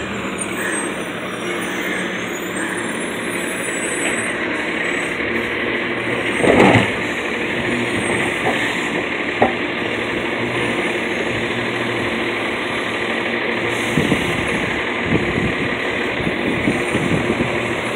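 Garbage truck's engine running steadily as it pulls up and stops, with one brief loud burst about six and a half seconds in and a few knocks near the end.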